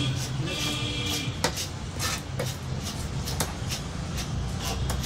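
A heavy cleaver chopping fish into pieces on a thick wooden block: a series of sharp chops, starting about a second and a half in and coming roughly every half second.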